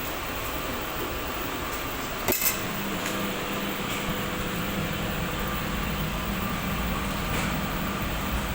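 Steady mechanical hum, with a brief double knock a little over two seconds in.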